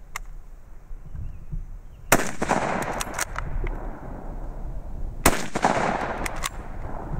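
Two shots from a Mauser K98k bolt-action rifle in 8mm Mauser, about three seconds apart, each ringing on for about a second, with a few short clicks after each as the bolt is worked.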